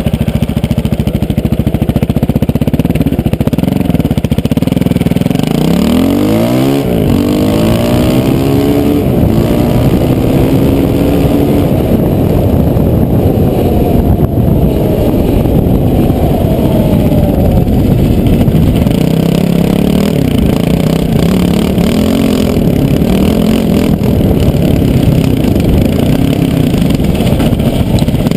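KTM LC4 620's single-cylinder four-stroke engine running under way, revving up hard about six seconds in, then pulling steadily with smaller rises and falls in revs.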